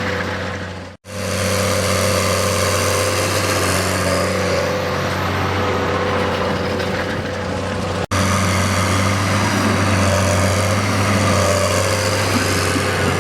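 Case IH Puma CVX tractor's six-cylinder diesel engine running steadily. The sound cuts out briefly twice, about a second in and about eight seconds in, and is a little louder after the second break.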